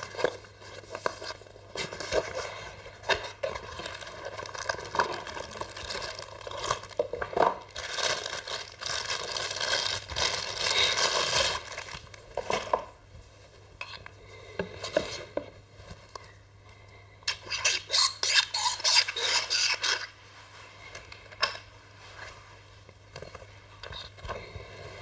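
Unboxing noise: a small cardboard box being opened and handled, with plastic wrapping crinkling loudly about a third of the way in and again in a rapid crackling burst about three quarters of the way through.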